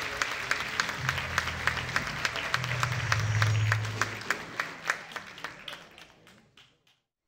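Audience applauding, the claps thinning and dying away about six seconds in. A low held note sounds under the clapping for a few seconds.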